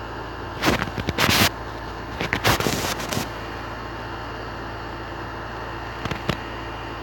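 Steady low hum and hiss, broken by two short bursts of crackling noise about a second and two and a half seconds in, and a couple of sharp clicks near the end.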